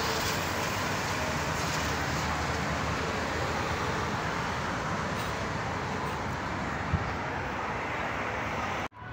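Steady rushing noise of outdoor traffic with a low hum underneath and one sharp click about seven seconds in. It cuts off suddenly just before the end.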